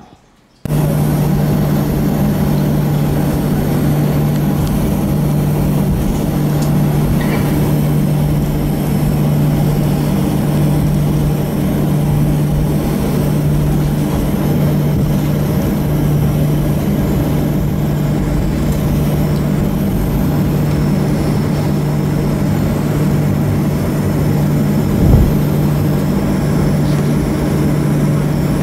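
Boeing 737 passenger-cabin noise while taxiing: a steady engine and air-system drone with a constant low hum. It starts abruptly a moment in, and a single sharp thump comes near the end.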